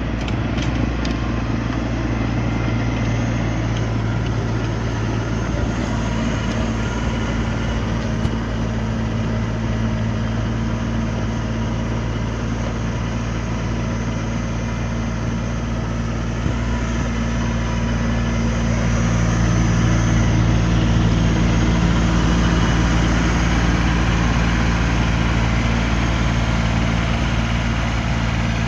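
Tractor engine running steadily, driving a snowblower, with a steady low engine tone that swells a little about two-thirds of the way through.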